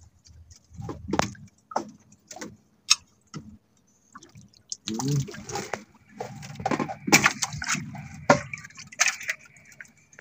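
Squid hand line hauled in hand over hand over a small boat's side, with scattered drips and splashes of sea water, busier in the second half as the squid comes up and is lifted aboard.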